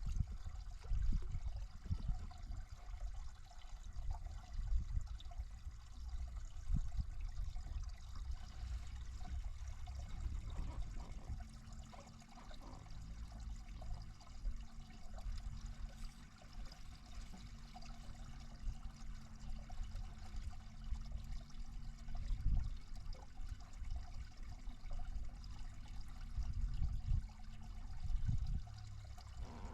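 Water lapping and splashing against a fishing boat, with irregular low rumbling thumps throughout and a faint steady hum from about eleven seconds in until near the end.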